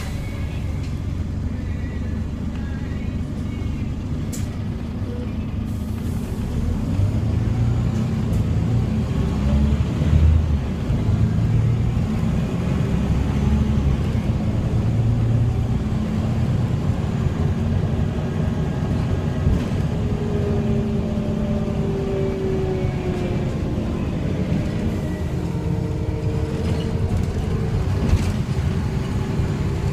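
Scania N94UB single-deck bus heard from inside the saloon while under way: a steady engine and drivetrain rumble that swells around ten seconds in, with a faint whine that comes and goes in the second half.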